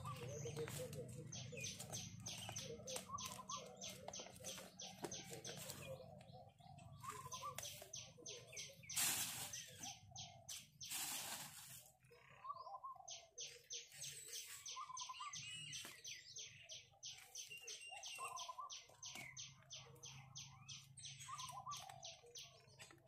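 Faint birdsong: a fast run of high, short chirps for most of the time, with a lower call repeating every second or two. Two brief, louder rustles come about nine and eleven seconds in.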